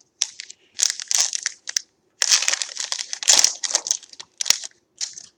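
Foil wrapper of a trading card pack crinkling and tearing as the pack is opened, in several irregular bouts; the longest and loudest comes about two seconds in.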